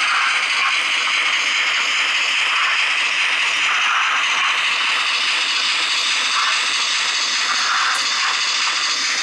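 N gauge model trains running on the layout's track: a steady whirring hiss of small electric motors and wheels on rail.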